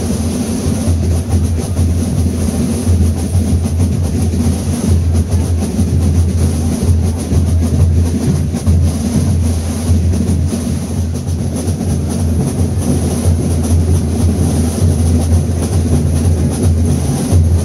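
Several Binche carnival tambours (drums) beating together in a steady, dense dance rhythm.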